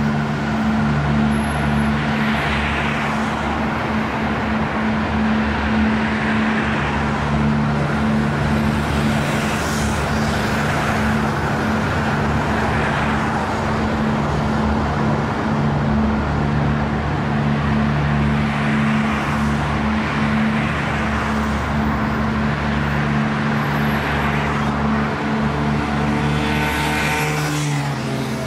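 Road traffic: a steady low engine hum under a wash of tyre and engine noise, with vehicles passing by every several seconds, one of them near the end.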